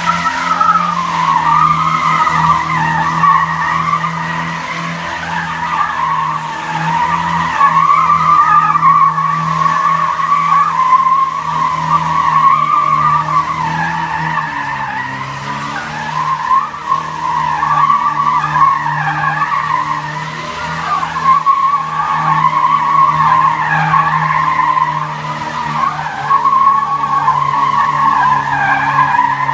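A car's tyres squealing continuously, wavering in pitch, over a steady engine note that dips briefly about halfway through.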